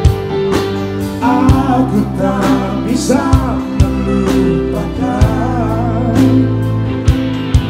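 Live pop band playing, with a male lead vocalist singing into a handheld microphone over electric bass and drums; the voice comes in about a second in.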